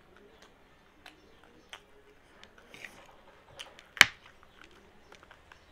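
Eating sounds: crunchy chewing of chatpate, a spicy puffed-rice snack, with small spoon clicks, and one sharp clink of the metal spoon against the plate about four seconds in.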